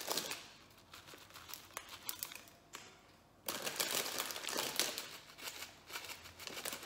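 Plastic sweet packets crinkling as they are handled and shaken out over the glasses, in crackly bursts, with the loudest stretch in the middle.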